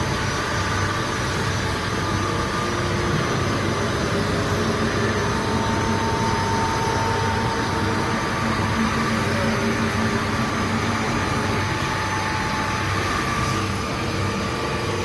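YANG EAGLE 450 CNC horizontal machining center running with its spindle turning: a steady mechanical hum with a higher whine that swells in the middle and then fades.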